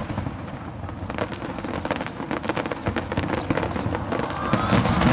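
Aerial fireworks bursting in rapid succession, a steady patter of sharp bangs and crackles that thickens into a louder cluster of bangs near the end.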